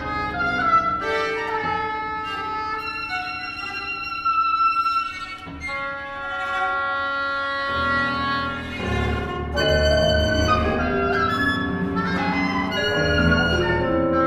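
Contemporary chamber ensemble music for oboe and ensemble: overlapping held notes from bowed viola and cello with winds. About eight seconds in, a denser, lower layer comes in and new notes strike on top of it.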